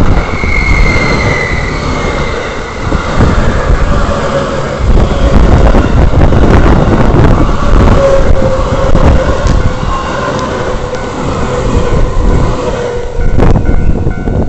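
A train running past close by: a loud, steady rumble and rattle of wheels on rail, with a faint whine that sinks slightly in pitch.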